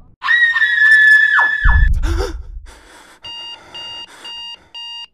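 A loud, high-pitched scream that drops away at its end, with a deep low thud underneath as it ends. About three seconds in, an electronic alarm clock starts beeping, about two beeps a second.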